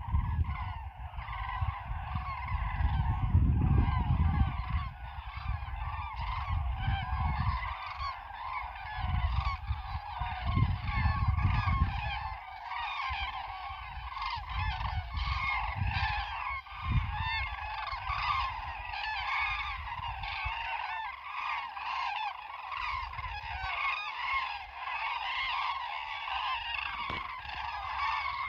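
A very large flock of big birds calling continuously in flight, many overlapping calls at once. A low rumble of wind on the microphone is strongest in the first twelve seconds and comes and goes after that.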